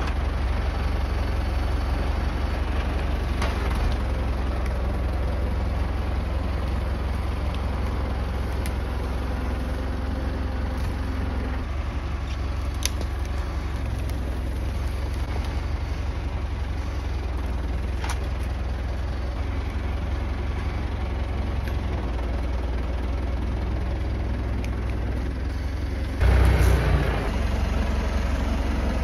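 Tractor engine running steadily with a low, even drone while the tractor skids a log, with a few faint sharp clicks along the way. Near the end the engine suddenly gets louder.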